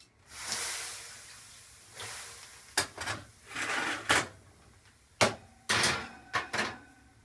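Water thrown into a hot 450 °F oven hissing into steam, fading over a second or so. Then comes a string of sharp knocks and metal clatter as the bowl is set down, a baking sheet goes onto the oven rack and the oven door is shut.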